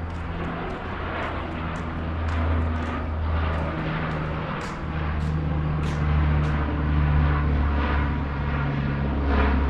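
An aircraft flying overhead: a steady low drone with a few held tones that shift slightly in pitch, growing a little louder toward the end.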